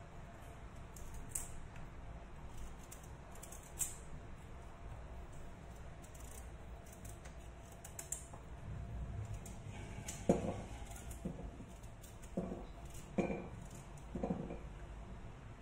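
Small kitchen knife peeling and cutting raw pumpkin on a wooden cutting board: faint scattered clicks and scrapes of the blade, then a run of five or six dull knocks in the last few seconds as pieces are cut and handled.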